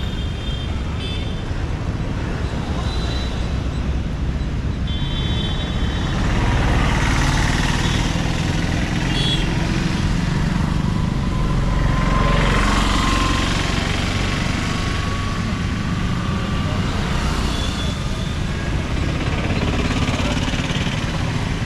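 City road traffic: motorcycles and cars passing close by over a steady traffic rumble, with a few short horn toots in the first several seconds and louder passing vehicles around seven and twelve seconds in.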